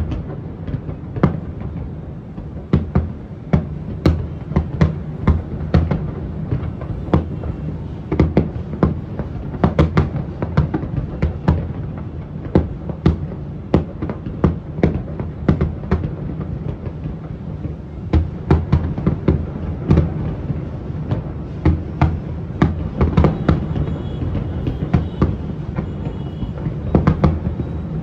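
Fireworks bursting in a rapid, irregular string of sharp bangs over a continuous low rumble, with music mixed underneath.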